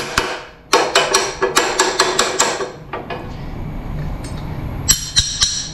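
Steel parts clinking and tapping together as a plasma-cut steel template and a steel wheel hub are handled and set on a steel table top. A quick run of sharp metal clinks fills the first couple of seconds, then a quieter stretch, then more clinks near the end.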